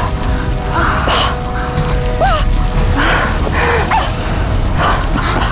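Dramatic background music over a low rumble, with a woman crying out in distress several times.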